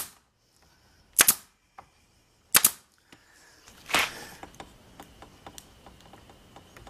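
Pneumatic nailer driving nails into wood: three sharp pops of air about a second and a half apart, then a duller, longer knock about four seconds in, followed by faint small clicks.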